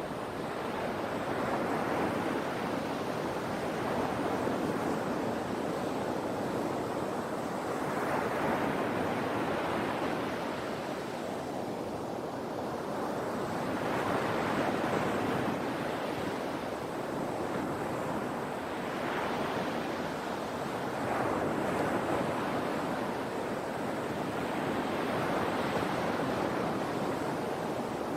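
Sea waves breaking and washing on the shore, the surf rising and falling in slow swells every few seconds.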